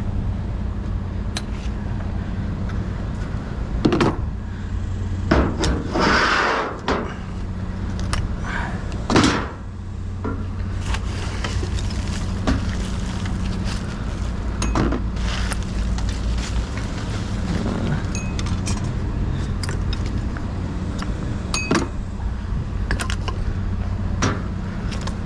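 Scrap and debris clinking and scraping as a dumpster is rummaged with a magnet stick, with louder scrapes about four, six and nine seconds in. A steady low hum from an idling vehicle engine runs underneath.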